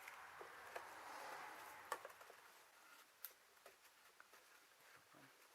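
Near silence with a few faint, sharp clicks and taps, the loudest a little under two seconds in: small tools from a precision tool kit being handled and set into their carrying case.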